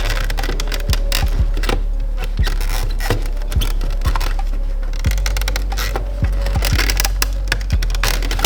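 Background music with a steady bass beat, with scattered small clicks and scrapes of parts and tools being handled.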